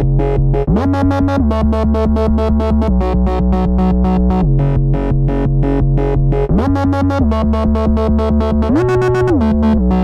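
Sequential Pro 3 synthesizer playing an original patch: a fast, evenly pulsing rhythm, several pulses a second, over held low notes. The pitch slides up into a new note about a second in, and again about two-thirds of the way through and near the end.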